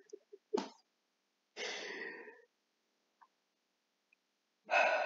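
A man clearing his throat: a short burst about half a second in, a longer raspy one at about a second and a half, and another starting near the end.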